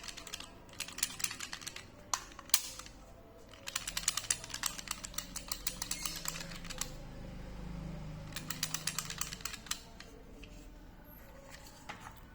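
Rapid runs of light, sharp clicks from a toy Glock 18C pistol being handled, in several clusters, the longest from about four to seven seconds in.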